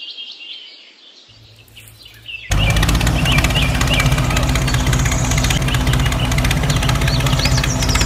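Birds chirping, then about two and a half seconds in a tractor engine sound cuts in suddenly and runs loud and steady at idle, with the birds still chirping over it.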